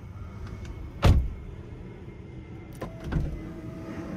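A 2021 Toyota Tacoma's door being shut from inside the cab: one loud slam about a second in. A softer click and knock follow near three seconds.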